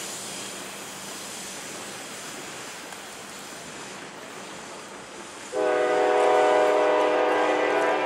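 Passenger cars of a departing train rolling along the rails with a steady rush, then about five and a half seconds in the lead F9A locomotive's Nathan K5LA five-chime air horn cuts in with a loud, sustained chord that is still sounding at the end.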